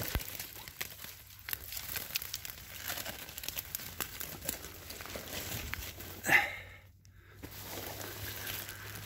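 Dry brush and fallen leaves rustling, with twigs snapping in quick irregular clicks, as someone pushes through a thicket. One short, louder sound comes a little over six seconds in, followed by a brief drop to near silence.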